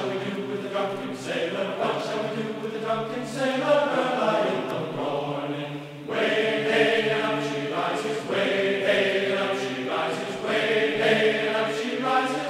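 Background music of chant-like choral singing, sustained voices in long phrases with a short break about halfway through.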